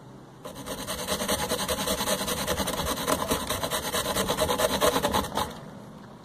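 Rapid, rhythmic rasping of a hand tool being worked back and forth, about ten strokes a second, starting about half a second in and stopping abruptly about five seconds later.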